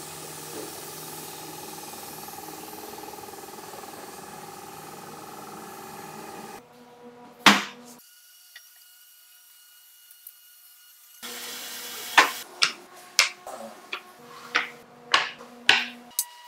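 Compressed-air spray gun hissing steadily, then one sharp knock and a quieter stretch. From about two-thirds of the way in comes a run of about eight sharp knocks as heavy hardwood pieces are set down and shifted on a concrete floor.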